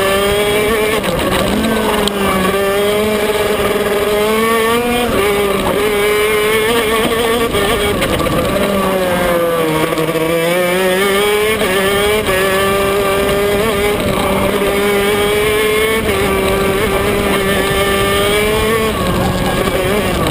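Onboard sound of a KZ shifter kart's Maxter 125cc two-stroke engine at racing speed, its pitch climbing and dropping back sharply at gear changes. About eight seconds in, the pitch sags as the kart slows for a corner, then climbs again.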